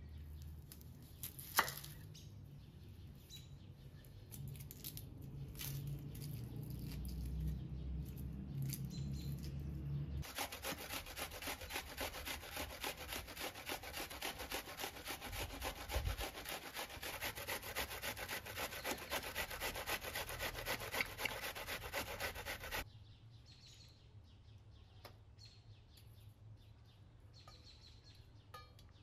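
Onion rubbed up and down a stainless-steel box grater in quick, regular rasping strokes for about twelve seconds in the middle. Before it, a knife cuts on a wooden board with one sharp knock; after it come faint handling sounds.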